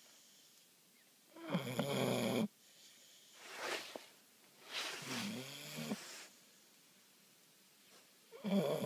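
A bulldog snoring in its sleep: a strong pitched snore every few seconds, with a breathier, hissing breath between the first two and a short quiet pause before the last.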